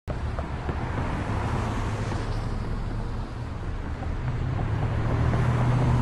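Road traffic on a city street: cars passing in a steady wash of engine and tyre noise that starts abruptly. A low engine hum grows louder about four seconds in.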